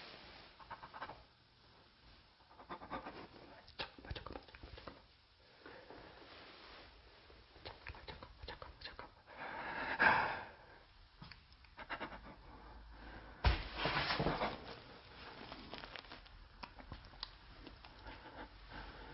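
A person breathing close to the microphone while moving in a small room, with clothing rustle and small handling knocks. There is a louder breath or rustle about ten seconds in, and a knock followed by more rustling about a second later.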